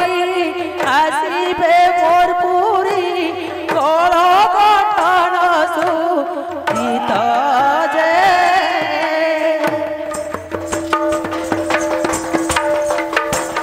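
A woman singing a folk song into a microphone with heavy wavering ornaments, over a hand-played two-headed barrel drum. About ten seconds in the voice stops, and the drum keeps up quick strokes over a steady held instrumental tone.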